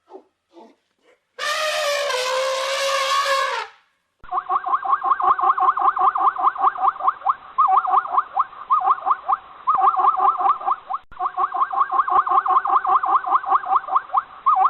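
Farm animal calls: a few short calls, then one long wavering call lasting about two seconds, then a dense run of rapid repeated calls, several a second, to the end.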